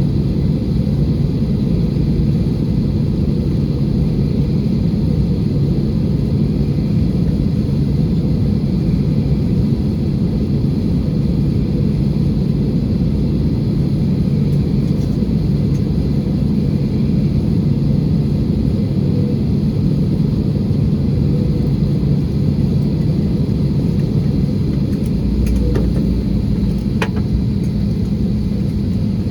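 Steady low rumble and hum inside the cabin of an Airbus A320 on the ground after landing. The hum steps down about 25 seconds in, with a brief low thump and a few faint clicks.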